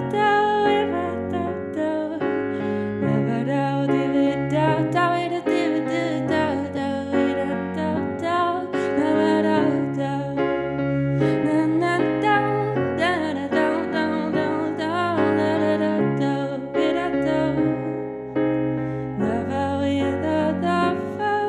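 Electric piano playing a slow song, with a woman singing over it.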